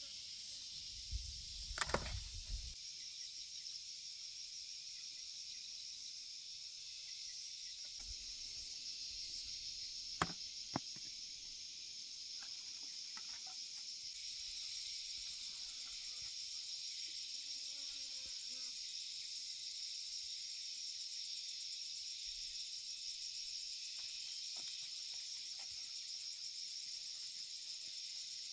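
Steady high-pitched chorus of insects chirring, with a few sharp knocks about two seconds in and again around ten seconds in.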